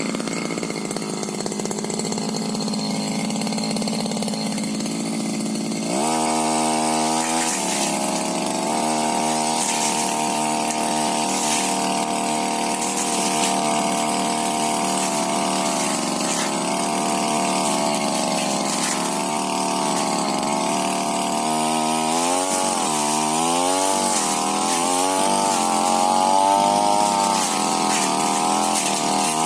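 Tiger TG328 brush cutter's two-stroke engine running low for about six seconds, then throttled up to high revs. Its pitch sags and recovers repeatedly as the blade bites into brush.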